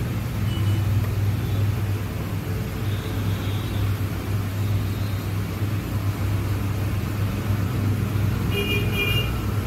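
Steady low rumble and hum with a noisy haze above it, like background traffic or a running machine. A few short high-pitched tones sound briefly near the end.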